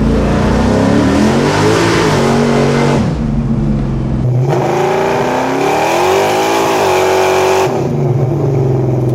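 GM 502 cubic-inch big-block V8 crate engine, fitted with a hydraulic roller cam and a billet intake, accelerating hard. The revs climb, dip about three seconds in, climb again, then fall back to a steady cruise note near the end as the throttle is lifted.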